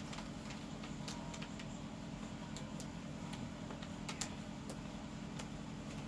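Steady low hum of room noise with a few faint scattered clicks.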